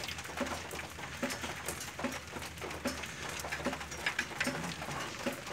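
Socket wrench tightening the bolt of a new poly-V belt tensioner on a VW AP engine: light, irregular metallic clicks of the tool working, over a steady low hum.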